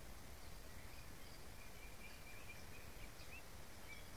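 Faint outdoor ambience: a low, steady rumble with faint, scattered bird chirps and a thin high note in the middle.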